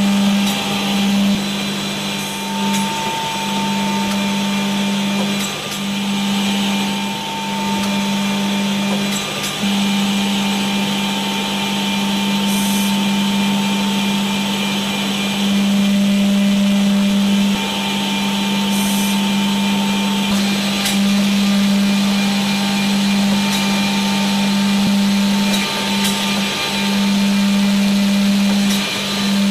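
Biesse Stream B1 edgebanding machine running: a steady motor drone with a high hiss over it, dipping briefly a few times.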